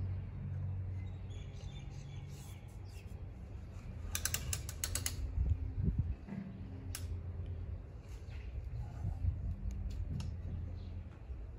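Clicks and rattles of a mitre saw and timber being handled and set up for an angled cut, not the saw running: a quick run of clicks about four seconds in and a single click about seven seconds in, over a low steady rumble.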